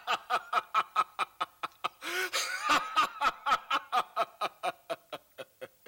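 A man's long, rapid ha-ha-ha laugh of scorn in the face of death, with a breath about two seconds in, tailing off near the end.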